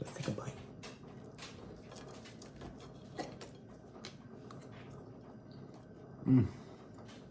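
Someone eating a plated steak meal: cutlery clicking against the plate and soft chewing, with a short hummed 'mmm' about six seconds in.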